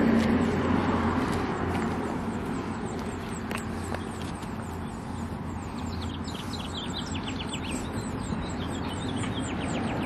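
Outdoor ambience of passing road traffic: a steady rush that is loudest at first and eases off, with a low engine hum under it for the first several seconds. Small birds chirp in the second half.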